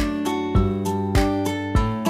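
Background music: a plucked or strummed guitar tune with a steady beat.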